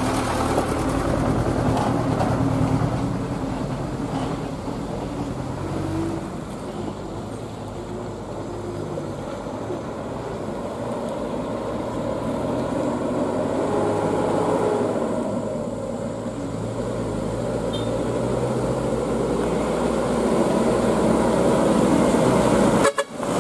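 Diesel engines of loaded Mitsubishi Canter Fighter trucks running as they crawl along a rough dirt road, swelling and fading, loudest near the end as a truck comes close.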